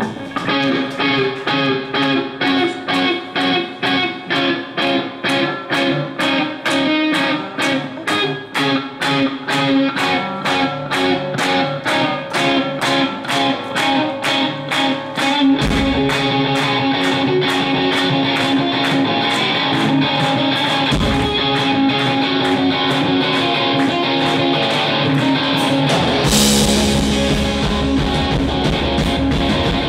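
Live rock band: an electric guitar plays a steady repeated riff on its own. A bass guitar comes in about halfway, and the drum kit with cymbals joins near the end for the full band.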